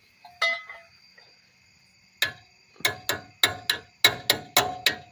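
Sharp metallic clicks from hand tools working a rusted bolt on a truck axle: one click near the start, then a quick regular run of ringing clicks, about three a second, from about two seconds in.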